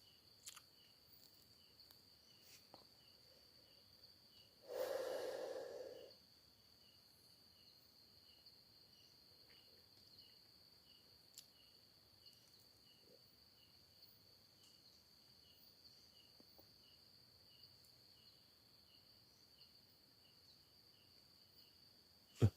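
Faint night insects: a steady high-pitched insect drone with regular cricket chirps. About five seconds in, one breathy exhale lasting just over a second, a person blowing out cigarette smoke.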